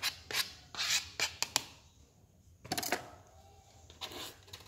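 Plastic spatula scraping diced vegetables off a plastic cutting board into a stainless steel bowl: several quick scraping strokes in the first second and a half, then a short louder clatter nearly three seconds in.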